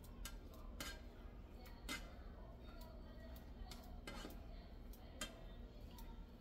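A spatula clicking and tapping against a skillet as sausage slices are pushed around in the pan: scattered light clicks, several a second apart.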